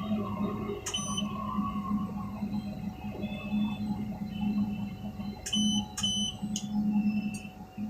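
Tower crane machinery humming steadily with short, high electronic beeps: one about a second in, then three at about half-second spacing past the middle.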